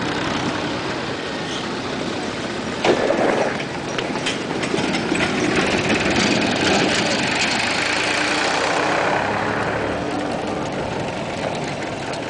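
Tractor engine running as a tractor pulling a trailer passes close by, over general street traffic noise. A short loud sound stands out about three seconds in.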